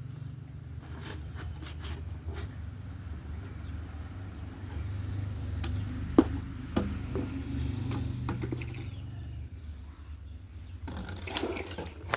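Fingers and nails working through hair while picking lice: faint rustling and scratching with a few sharp clicks, over a steady low hum that stops about ten seconds in.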